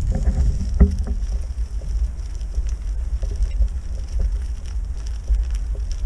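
A 20-inch unicycle with a fat tyre rolling over rough ground strewn with stones, bits of wood and weeds: a steady low rumble with scattered small clicks and crunches as the tyre rides over the debris.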